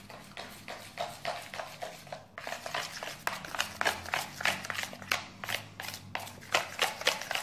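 A small spoon stirring glue slime in a bowl, with quick repeated scraping strokes against the bowl.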